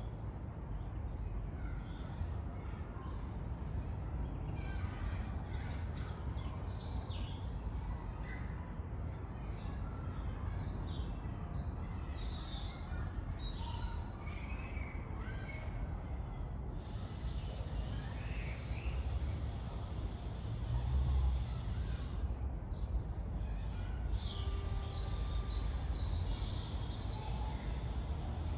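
Several small birds chirping and singing in short phrases, over a steady low rumble of distant road traffic that swells briefly about two-thirds of the way through.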